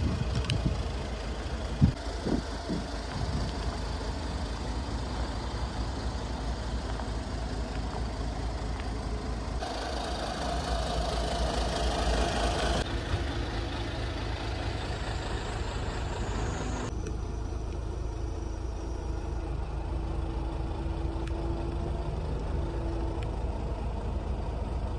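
Iveco Daily 35S14's 2.3-litre four-cylinder diesel engine idling steadily, with a few knocks in the first few seconds and a stretch of louder hissing noise about ten seconds in.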